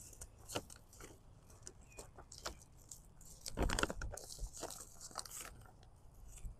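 Faint, scattered crunches and rustles, with a louder crunching stretch about three and a half seconds in.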